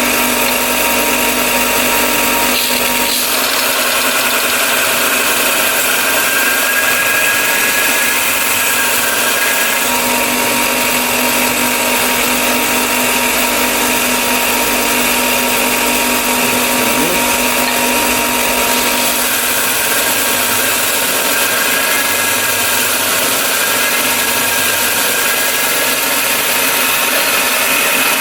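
Bucktool BD4603 direct-drive belt and disc sander running steadily while a small piece of metal is ground square against it.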